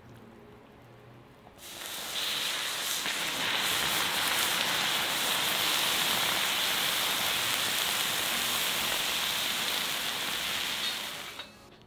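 Molten lava pouring onto dry ice pellets, giving a loud, steady sizzling hiss with faint crackles. It starts about two seconds in and dies away near the end.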